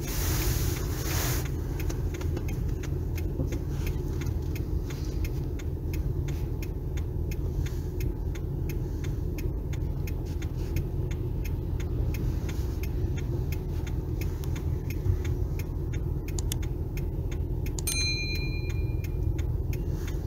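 Car idling at a standstill, heard inside the cabin as a steady low rumble, with the left turn-signal indicator clicking at an even pace. A short high chime sounds near the end.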